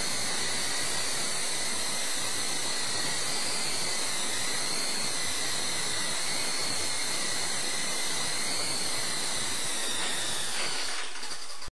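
Electric motor and coaxial rotors of an Esky Co-Comanche RC helicopter in flight: a steady high whine over a hiss, wavering slightly in pitch with the throttle. Near the end, after it has set down, the whine falls away as the rotors spin down.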